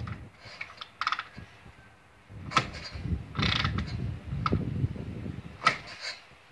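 Harley-Davidson Shovelhead V-twin being kick-started: the kickstarter's ratchet and gears clatter with each kick and the engine turns over. Several kicks in a row, without the engine settling into a steady run.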